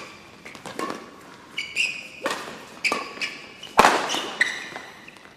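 Badminton rally: rackets striking the shuttlecock with sharp hits about once a second, between short high squeaks of court shoes on the floor.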